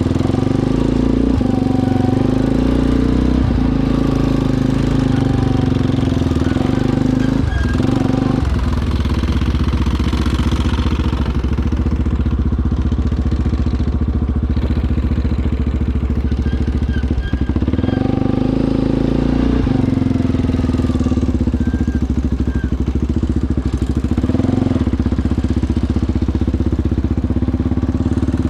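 ATV engine running continuously, its pitch rising and falling several times with the throttle.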